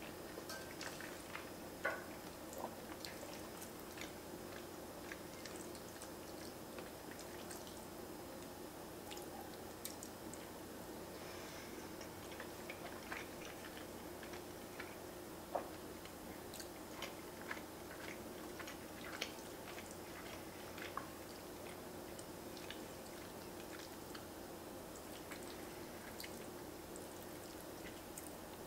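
Quiet close-up chewing of pasta, with small wet mouth clicks scattered through it and a few sharper ticks, one a couple of seconds in and another about halfway. Now and then the wooden fork scrapes and taps in the enamelled pan, over a faint steady room hum.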